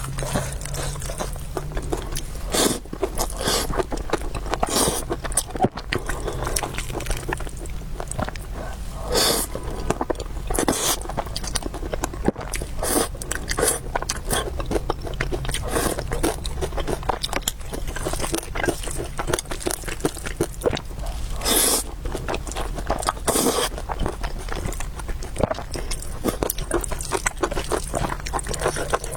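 Close-miked eating: wet chewing and mouth clicks over noodle soup, with a few louder noisy slurps about a third of the way in and near the end.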